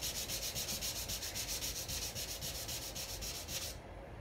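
Hand sanding of a painted wooden cabinet door: fast, even back-and-forth rubbing strokes over the paint, distressing it back to the layer beneath. The strokes stop shortly before the end.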